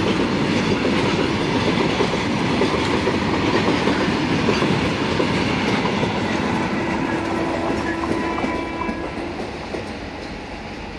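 Covered BCNA freight wagons rolling past, a dense rumble with wheels clattering over the rails. The sound fades away over the last few seconds as the end of the train recedes.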